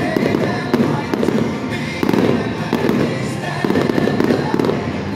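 Aerial fireworks going off in a dense, continuous barrage of crackles and bangs, with music playing underneath.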